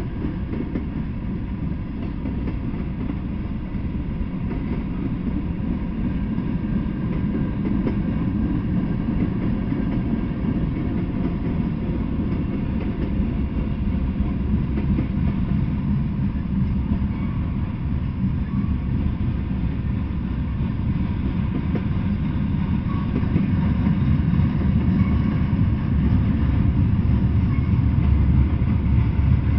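Freight train of hopper, tank and gondola cars rolling past, a steady low rumble of steel wheels on the rails that grows louder near the end.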